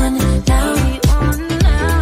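Pop song playing, with a steady drum beat of about two beats a second.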